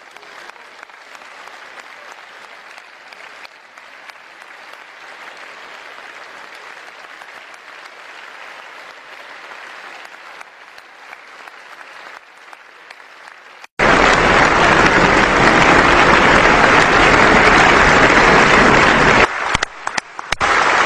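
Large audience in a parliament chamber applauding at length, a steady wash of many hands clapping. About fourteen seconds in the applause abruptly becomes much louder and brighter, dipping briefly shortly before the end.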